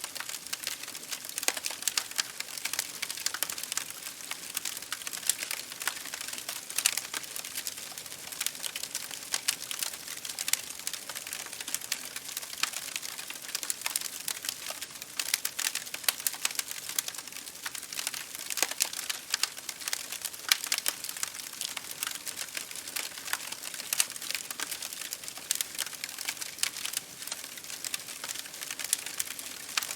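Bonfire crackling: burning wood giving off dense, irregular pops and snaps over a steady soft hiss.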